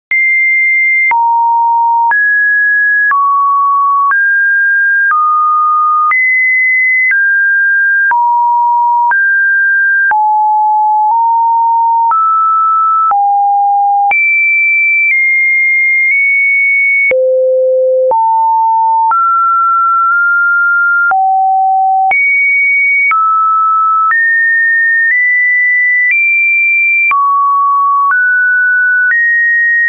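Electronic test tones: a single pure beep held for about a second at a time, jumping to a new pitch every second in no set order, from fairly low to high. A faint click marks each change.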